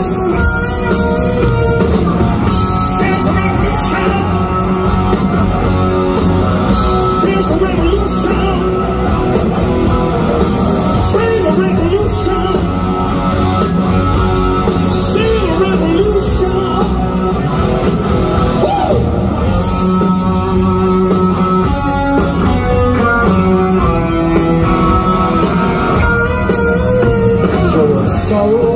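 Rock band playing loud and live in an arena: a male singer's vocals over electric guitar and a full band, heard through a phone's microphone from the crowd.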